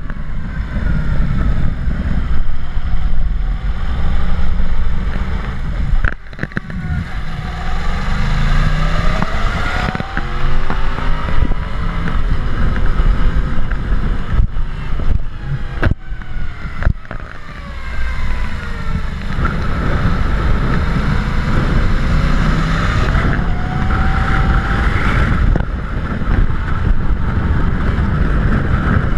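Motorcycle engine pulling up in pitch and dropping again several times, as with acceleration through gear changes. Heavy wind buffeting on the microphone throughout.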